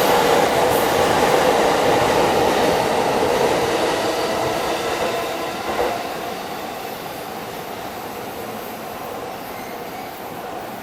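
A JR electric commuter train running along the platform, loud at first and then fading steadily over a few seconds as it pulls away, with a short knock about six seconds in.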